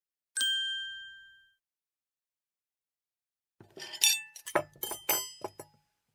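A single bright chime ding, the page-turn signal, ringing and fading over about a second. About three seconds later comes a quick run of sharp clinks and clatters lasting about two seconds.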